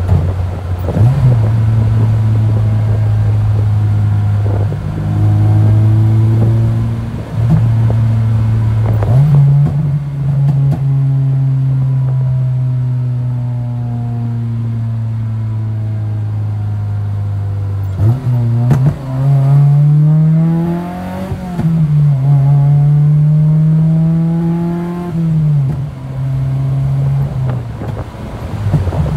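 Acura RSX's four-cylinder engine heard from inside the cabin, at first running at a steady drone. About two-thirds of the way in it accelerates, its pitch climbing and dropping twice as the car is shifted up through the gears.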